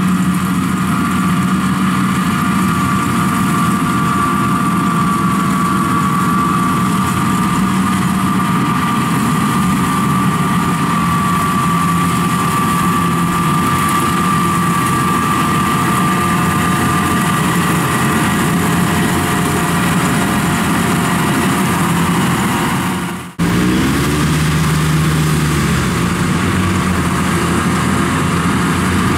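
Kubota rice combine harvester running steadily as it cuts rice: engine hum with a steady high whine over it. About three quarters of the way in, the sound cuts abruptly to a different, smaller engine, a tracked rice transporter, whose pitch moves briefly just after the change.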